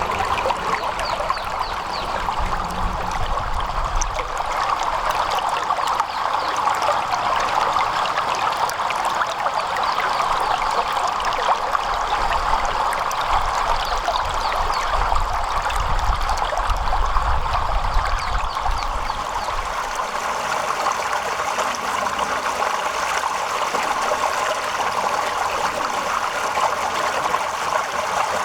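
Stream water running and trickling steadily, with many small splashes and bubbles, and a low rumble underneath for a few seconds midway.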